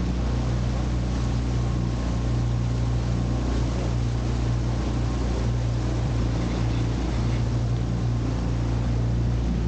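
Small outboard motor pushing an inflatable dinghy along at a steady speed: an even low engine hum with water rushing past the hull.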